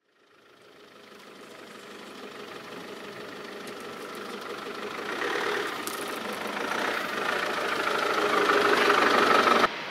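Great Wall Hover SUV's engine running as it drives slowly up to the microphone on a dirt track, growing steadily louder as it approaches, then cutting off suddenly near the end.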